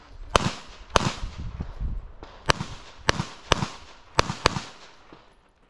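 Gunshots from a competitor shooting a USPSA stage: about seven shots, several fired in quick pairs, each followed by a short echo.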